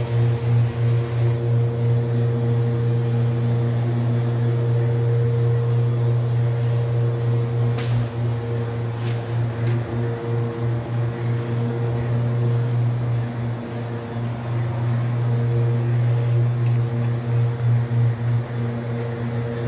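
A steady low mechanical hum with a few fixed overtones, its loudness pulsing a few times a second at times, typical of shop machinery such as a motor or fan. Two light clicks come about eight and nine seconds in.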